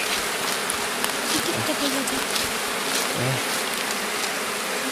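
Many honeybees buzzing steadily around their comb, a dense continuous hum.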